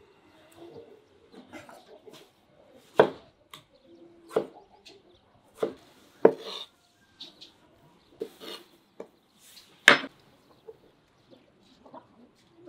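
Kitchen knife cutting tomatoes on a wooden cutting board: several sharp knocks at uneven intervals as the blade goes through and strikes the board.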